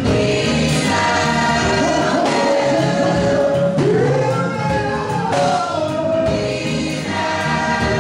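Gospel choir singing live with instrumental accompaniment, the voices holding long notes over a steady beat, with one voice sliding up in pitch about halfway through.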